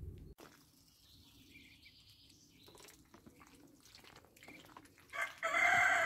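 A rooster crows once near the end, one long call that falls slowly in pitch; before it there is only faint background sound.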